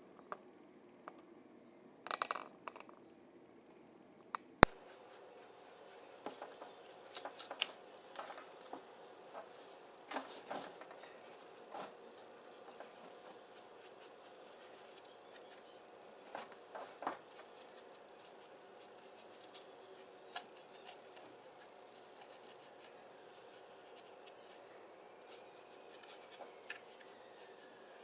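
Quiet crafting handling sounds from work on foam plates: scattered snips, scratches and small clicks, with one sharp click about four and a half seconds in.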